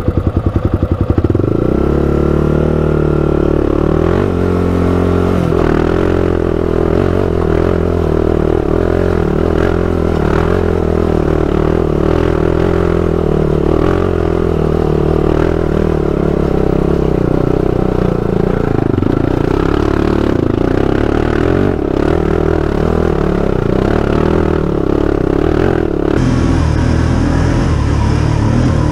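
Honda TRX400EX ATV's single-cylinder four-stroke engine, heard from the rider's seat. Its separate firing strokes are heard for about the first second, then the revs rise and it runs steadily under throttle, pulling up a dirt trail. Near the end the engine sound changes to that of another ATV.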